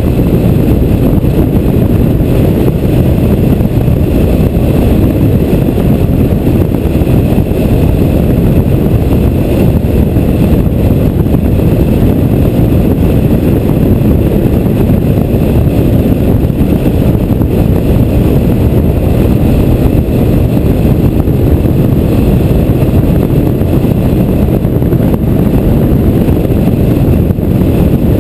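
Steady wind buffeting and road noise on a motorcycle-mounted camera's microphone at road speed, with the motorcycle's running noise mixed in. The noise stays low-pitched and unchanging throughout.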